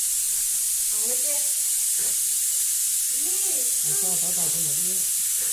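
Steady high-pitched hiss with a faint murmuring voice beneath it, a few soft sounds rising and falling in pitch.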